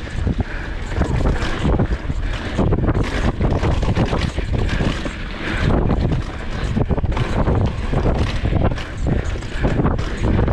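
Wind rushing over the microphone of a Polygon Xquareone DH9 downhill mountain bike descending a dirt trail at speed, with tyres on dirt and the bike rattling and knocking irregularly over bumps.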